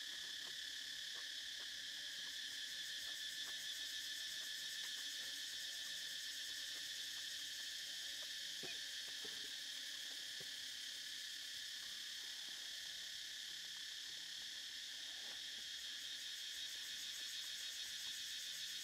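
Steady, high-pitched chorus of insects, an unbroken drone, with a few faint clicks and taps scattered through it.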